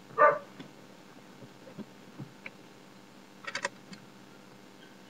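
A dog barks once right at the start. Then come a few faint clicks, and about three and a half seconds in a short rattle of sharp clicks as the Ford Focus's ignition key is turned to on and the dashboard warning lights come on; the engine is not running.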